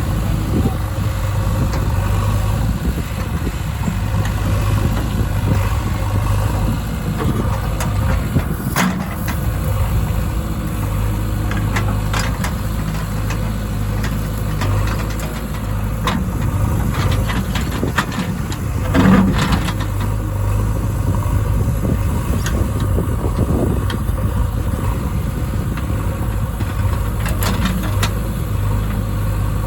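Heavy diesel engine running steadily, the sound of a backhoe loader at work loading mud, with a few short knocks, the loudest about nineteen seconds in.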